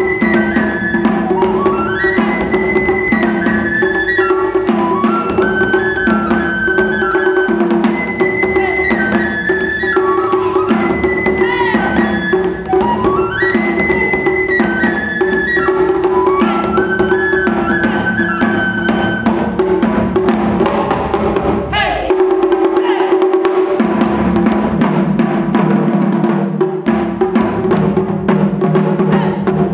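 Taiko ensemble playing: a transverse flute carries a sliding melody over a steady pattern on taiko drums, among them a large odaiko on a stand. About 22 seconds in the flute drops out and the drums carry on alone with denser, faster strokes.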